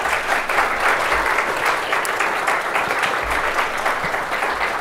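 An audience applauding: many people clapping together at a steady pace.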